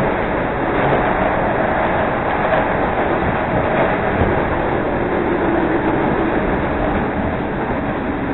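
CTA Red Line rapid-transit train running at speed between stations, a steady rumble of wheels on rail heard from inside the car.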